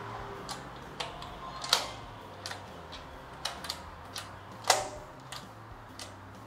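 Irregular metallic clicks and knocks of gate lock hardware being worked, about a dozen in all, with two louder clacks a little under two seconds in and near five seconds in.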